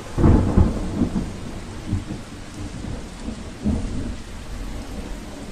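Rain falling steadily with thunder rumbling, loudest just after the start, with further rolls about two seconds in and near four seconds.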